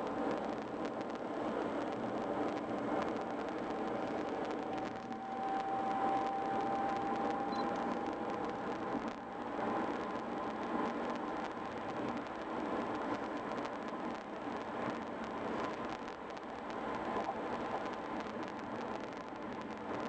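A car driving at highway speed, heard from inside the cabin: steady tyre and road noise with engine hum. A faint whine rises slightly about five seconds in and fades a few seconds later.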